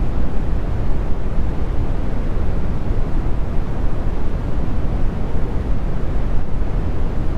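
Brown noise: a steady, deep rumbling hiss, strongest in the lows and thinning out toward the highs, with no change or pattern in it.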